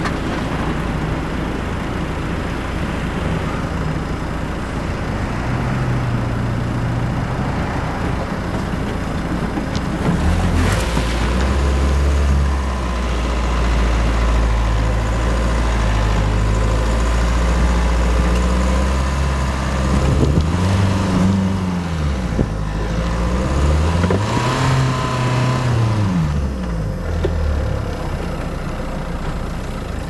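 Renault Duster 4x4's engine pulling in low gear through a river crossing and up the bank, with a rushing wash of water under the car for the first ten seconds or so. The engine drone grows louder about ten seconds in, then the revs rise and fall several times near the end as it climbs.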